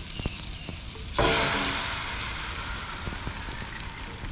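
Food frying in a pan, a steady sizzle that suddenly flares much louder about a second in and then slowly dies back down.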